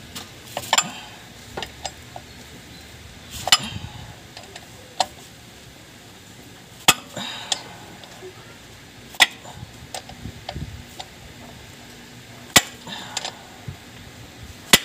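Sharp metallic clinks and taps, several seconds apart and uneven, as a hand tool works at the flywheel (pilot) bearing in the centre of a Suzuki Multicab flywheel, with a combination wrench braced against it, to extract the bearing for replacement.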